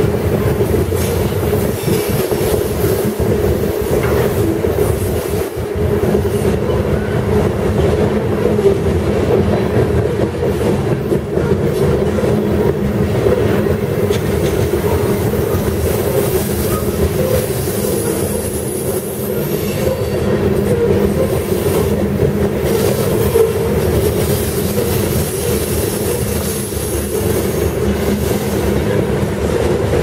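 CSX covered hopper cars of a freight train rolling steadily past: a continuous rumble and clatter of steel wheels on rail, with a faint high wheel squeal now and then in the second half.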